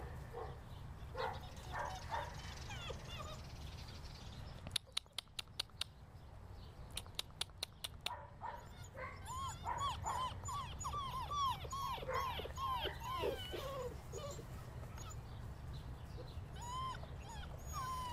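German Shorthaired Pointer puppies whimpering and yipping: a long string of short, high cries that rise and fall, coming thick and fast in the middle, with scattered yips before and after. Two quick runs of sharp clicks sound a little before the cries.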